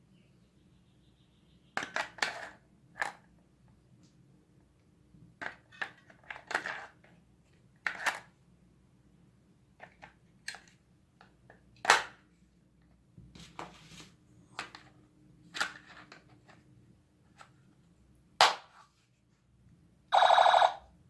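Plastic toy guns being handled, with scattered sharp clicks and knocks. Near the end a toy gun's battery-powered sound effect goes off once: a loud, buzzy, ringing electronic blast lasting about a second.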